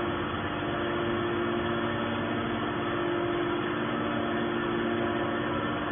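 Hydraulic scrap-metal baler running steadily: a continuous machine hum with a few held low tones.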